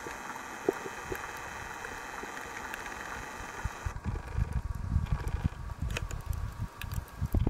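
Underwater sound picked up through a camera's waterproof housing on a reef. It starts as a steady crackling hiss, then about four seconds in gives way to low rumbling surges and knocks of water moving against the housing.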